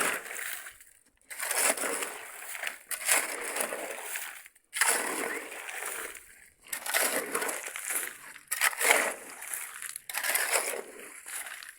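Shovels scraping and turning wet concrete mix by hand, in about six long gritty strokes roughly every second and a half to two seconds.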